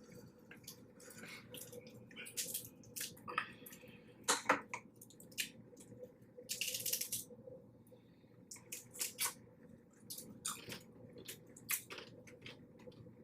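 Messy eating of a seafood boil in butter sauce: wet squishing and chewing with scattered short, sharp clicks, and a brief rustle about seven seconds in.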